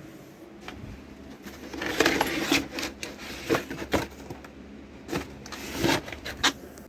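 Packaging and tool parts being handled: rustling with a run of sharp clicks and knocks, starting about two seconds in.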